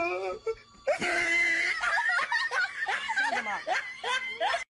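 People laughing, with excited talking mixed in.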